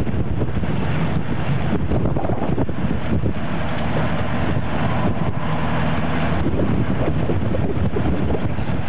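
Diesel engine of a tracked armored vehicle running steadily, heard from on board, with wind rumbling on the microphone.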